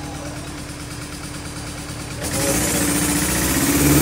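Off-road 4x4's engine running at low revs, then revving up and getting louder about two seconds in.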